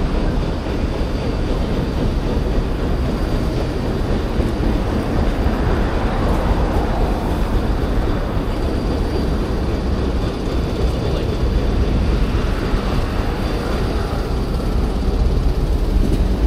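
Steady low rumble of passing vehicles, with no single event standing out.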